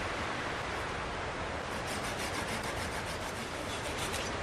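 Hand saw cutting through a log on a sawbuck, starting about halfway in as a quick, even run of back-and-forth strokes and stopping just before the end, over a steady background hiss.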